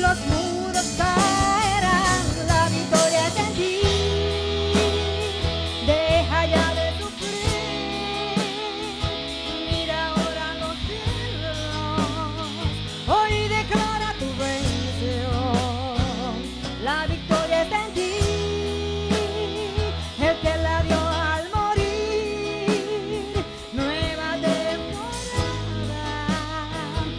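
Live gospel worship band playing a slow song over a PA: bass, drums and guitar under a wavering melody line with vibrato, with singers' voices.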